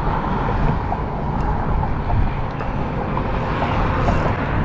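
Steady low rumble and hiss of road traffic and wind on a bridge.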